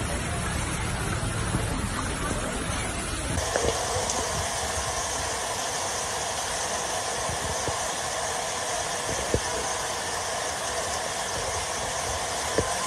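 Fast floodwater rushing through a street: a steady, loud rushing noise. A different clip with a low rumble underneath runs for the first three seconds or so, then cuts abruptly to the rush. Two sharp knocks come late on, the second near the end.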